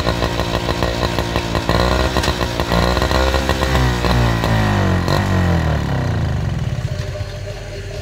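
Small engine of a homemade garden-tractor racer revving up and down under load as it pushes through deep mud and water, its pitch rising and falling. The engine drops back and quietens near the end.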